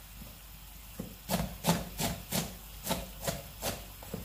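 Chef's knife slicing an onion on a plastic cutting board, the blade knocking the board with each cut. About eight strokes at a steady two to three a second, starting about a second in.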